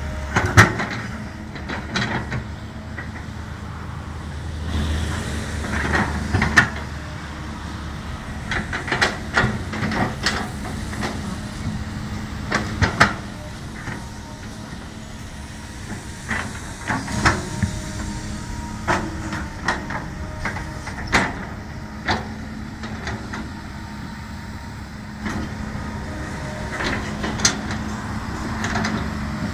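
Kobelco SK200 hydraulic crawler excavator's diesel engine running steadily under work, with frequent irregular metallic clanks and knocks from the working machine.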